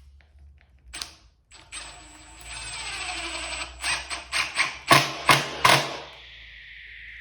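Mechanical clicking and rattling, then a run of sharp clicks and knocks, the three loudest in quick succession. It sounds like tools or a tool battery being handled. A held, slowly falling tone comes in near the end.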